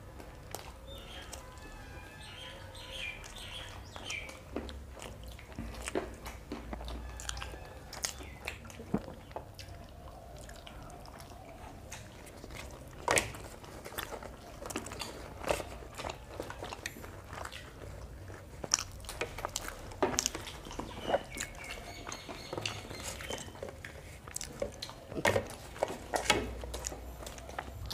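Two people eating paratha and chicken curry by hand: close chewing and biting, with irregular short wet clicks and smacks from their mouths and no talk.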